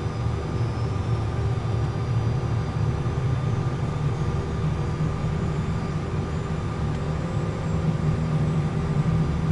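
Cessna Citation business jet's turbofan engines heard from inside the cockpit, the right engine winding up to idle just after light-off in a generator-assisted start: a steady low rumble with a thin whine above it.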